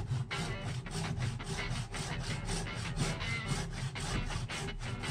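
Handsaw cutting through a bark-covered log clamped in a vise, in steady back-and-forth strokes, several a second.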